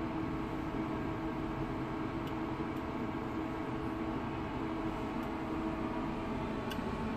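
Commercial induction cooker running under a concave wok of water: a steady hum from its fan and coil, with a few faint ticks.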